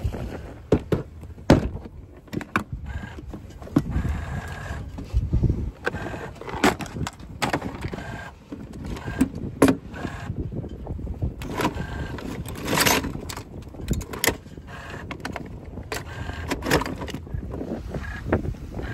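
Metal hand tools and boat hardware clinking and knocking as they are handled: an irregular string of sharp clanks and rattles over a low rushing background.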